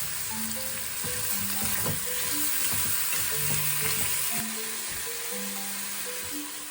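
Food sizzling in a hot frying pan: a steady, dense hiss. A light tune of single mallet-like notes plays underneath.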